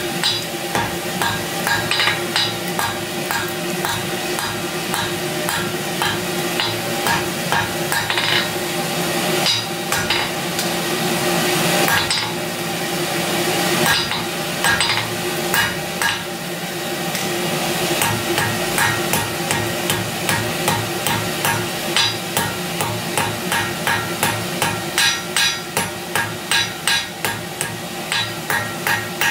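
Hand hammer striking red-hot round steel bar on an anvil, forging the flat bit of a pair of blacksmith's tongs. The blows come fast and unevenly at first, then settle into a steady beat of about two a second near the end, over a steady low hum.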